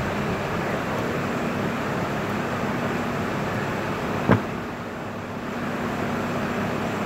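Steady background hum of a workshop, with one sharp click a little over four seconds in as hands work on the wiring of a PLC panel.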